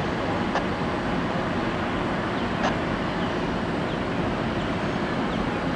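Freight train of hopper cars rolling past, a steady rumble, with a few faint short high squeaks.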